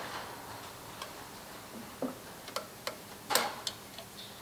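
Hand tools clicking and knocking against plastic and metal engine-bay parts: about six short, irregular clicks, the loudest about three and a half seconds in.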